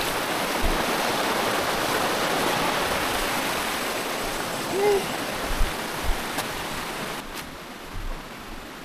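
Steady rushing of water over the rocks of a shallow stream. It grows quieter over the last couple of seconds, and a few dull low thumps sound under it.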